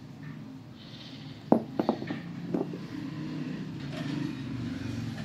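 A motor vehicle engine running steadily in the background, getting somewhat louder past the middle, with a quick cluster of four sharp knocks about a second and a half to two and a half seconds in.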